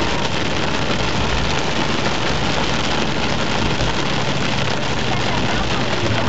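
Torrential rain beating on a car's roof and windscreen, heard from inside the cabin, a steady dense hiss with the car's engine running underneath.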